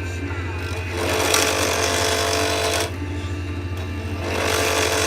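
Wood lathe running with a steady motor hum. A loud rasping hiss comes in two passes, from about a second in to near three seconds and again from about four seconds on, as a turning tool cuts the spinning acrylic pen blank.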